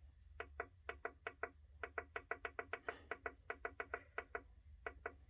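Heat press digital control panel beeping as its buttons are pressed repeatedly to set the press time: about two dozen short electronic beeps in quick runs with brief pauses between them.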